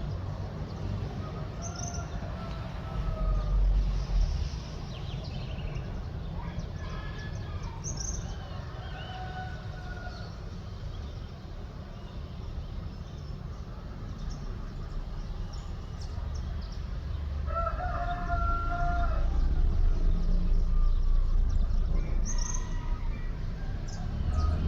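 A rooster crowing several times at dawn, the clearest crow about eighteen seconds in, with small birds chirping in short high notes. A low steady rumble lies underneath and grows louder in the second half.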